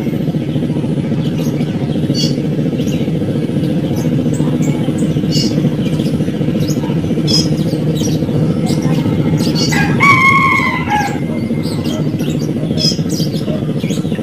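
Outdoor birds chirping in short, scattered bursts over a steady low hum. About ten seconds in, a louder drawn-out bird call lasts roughly a second and falls away at the end.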